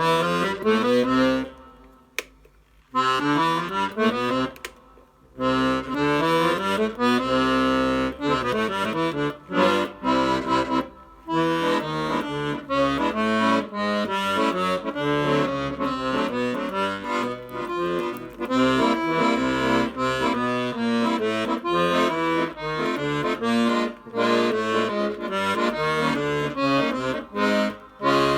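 Hohner Student 72 piano accordion played as a sound test after repair: runs of notes going up and down over held chords, with two short breaks in the first few seconds.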